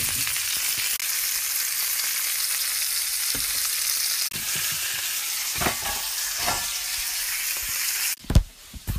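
Steady sizzling of food frying in a hot stainless steel pot, with a few light knocks of a sauce bottle and a glass jar against the pot. The sizzle cuts off abruptly about eight seconds in, and a loud clank of a metal pot lid follows.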